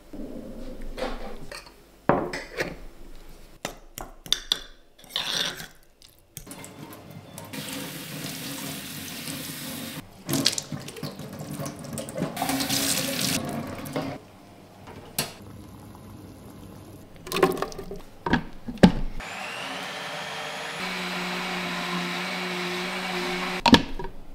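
A few knocks and clinks as sliced red onion is pushed into a glass jar. Then tap water runs over beans in a strainer into a stainless steel sink. Near the end a countertop blender runs steadily for about four seconds before stopping with a click.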